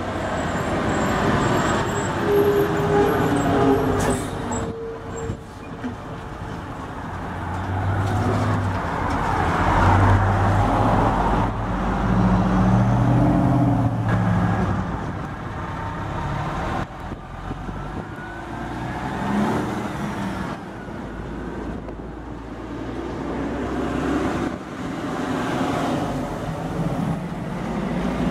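Diesel semi trucks pulling double belly-dump gravel trailers drive past one after another, their engines running under load over steady road and tyre noise. The sound swells and fades as each truck goes by, loudest in the middle.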